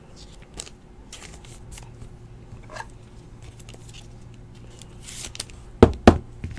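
A trading card being handled and slid into a rigid clear plastic top loader: faint plastic rustles and scrapes, then two sharp taps about a quarter second apart near the end.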